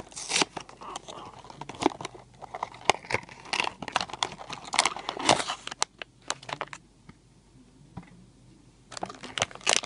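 Vinylmation blind-box packaging being opened by hand: a dense run of crinkling, crackling and tearing, a quieter lull about seven seconds in, then more crinkling near the end.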